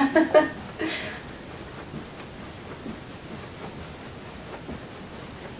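A few short vocal sounds in the first second, then quiet room tone: a steady faint hiss.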